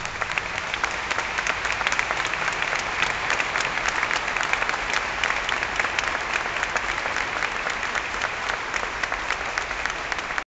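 Audience applauding: dense, steady hand-clapping from many people, cutting off suddenly near the end.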